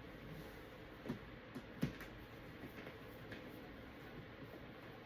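A few light clicks and taps over quiet room tone, the sharpest a little under two seconds in.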